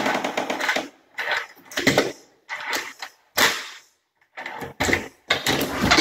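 A newly fitted doorknob and deadbolt rattling and clicking in about seven short bursts as a key is worked in the lock and the door is tried.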